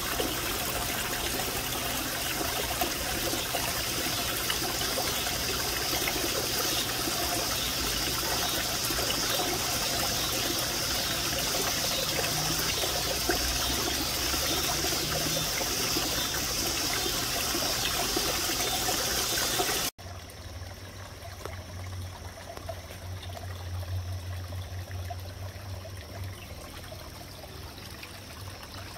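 Small garden-pond waterfall trickling and splashing steadily. About two-thirds of the way through it cuts to a quieter trickle with a low steady hum beneath it.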